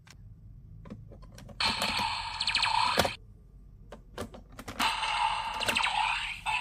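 Plastic clicks as a DX Giffard Rex Vistamp toy is worked and pressed down onto a DX Revice Driver's stamp base. Between the clicks the toys' small, tinny speakers play two bursts of electronic sound effects: one about a second and a half in, the other just after the stamp is pressed, near the end.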